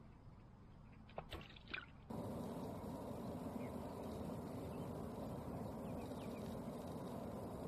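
Outdoor ambience: a few short sharp sounds just over a second in, then an abrupt switch to a steady rushing noise.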